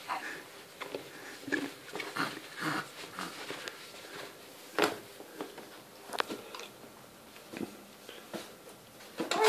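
Scattered soft clicks, rustles and small mouth sounds from a baby kicking on a padded changing mat, with the sharpest clicks about five and six seconds in.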